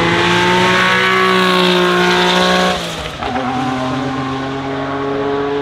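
Lanzante Porsche 930 TAG Turbo's 1.5-litre turbocharged V6, an ex-Formula One TAG-Porsche engine, running hard with a strong, slowly rising engine note. About three seconds in the note drops away briefly, then picks up again at a lower pitch and climbs.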